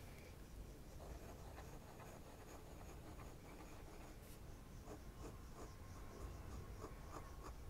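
Faint scratching of a fine fountain-pen nib on thin Tomoe River paper, drawing a row of loops and then short slanted strokes.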